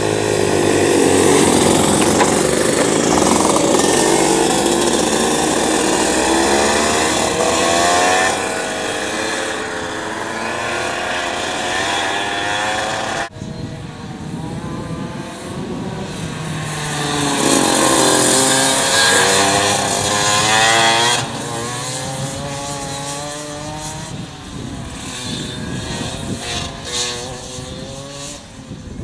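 Go-kart engines revving hard, the high-pitched engine note sweeping up and down as the karts accelerate and lift off. The sound cuts off abruptly about thirteen seconds in, then comes back with another loud sweep before settling lower.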